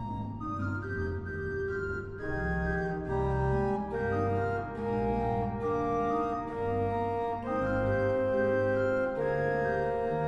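Pipe organ playing slow, sustained chords over deep held bass notes, the chords changing every second or two.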